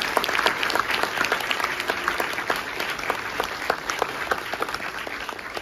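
Audience applause: many hands clapping together, gradually dying down near the end.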